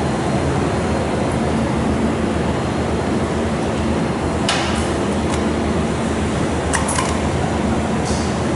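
Laser welding machine and its water chiller running, a steady whir of cooling fans with a low hum. A sharp click about halfway through as the foot-pedal cable's plug is pushed into its socket, and a few more light clicks later.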